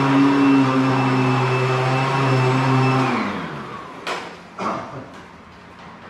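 Vacuum cleaner motor running steadily with a high whine, switched off about three seconds in and winding down with a falling pitch. A few short knocks follow after it stops.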